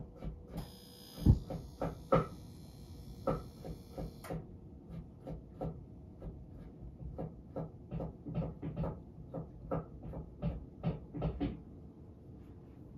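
A kitchen knife chopping carrots on a cutting board: a run of short wooden knocks, about two or three a second, with one much louder thump about a second in. A steady hiss runs alongside the first few seconds.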